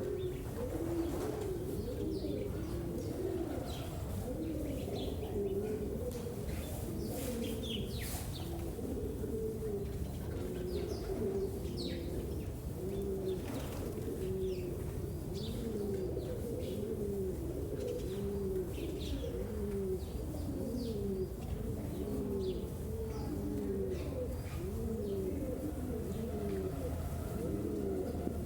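Many pigeons cooing over one another in a steady, continuous chorus of low arching calls, with small birds chirping here and there.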